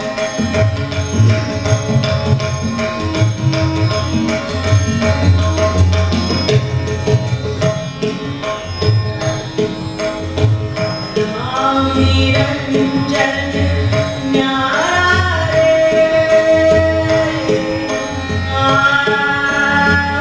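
Hindustani devotional singing (a bhajan) with tabla, harmonium and a tanpura drone. The first half is tabla strokes under held harmonium notes; a woman's voice comes in about halfway with gliding, ornamented phrases.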